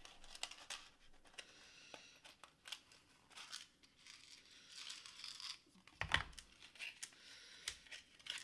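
Plastic wrapping crinkling and tearing as a small packaged item is unwrapped by hand, with scattered light clicks and a dull thump about six seconds in.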